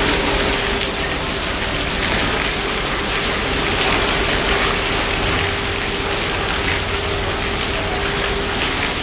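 Steady rushing and splashing of water in a polar bear pool as the bears move through it, with a steady hum under it.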